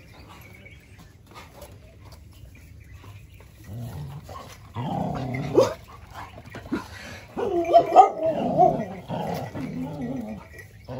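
Dogs growling and crying out in rough play, starting about four seconds in, with a run of bending, whining cries around eight seconds.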